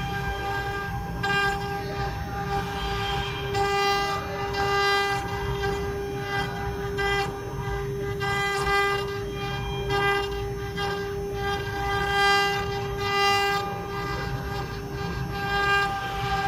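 CNC router spindle whining at a steady high pitch as its ball-nose bit carves a relief into a wood panel, with higher tones and cutting noise that swell and fade as the head moves across the work.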